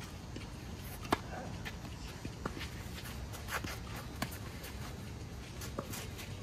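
Tennis ball on a green clay court: about five sharp, separate knocks of the ball bouncing and being struck by the rackets during a rally, the loudest about a second in, over a steady outdoor hum.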